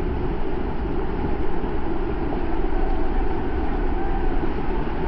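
Loud, steady rushing and rumbling of white-water river rapids, heard from a raft.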